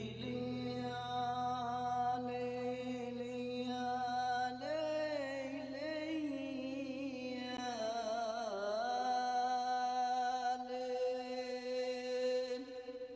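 Music of long held sung or chanted notes, wavering slowly in pitch in places, over a steady low note that drops out about eight seconds in.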